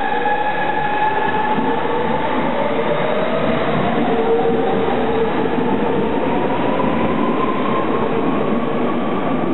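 Hamburg U-Bahn train pulling out of an underground station past the platform: loud, steady running and wheel noise on the rails, with a whine that rises slowly in pitch as the train gathers speed.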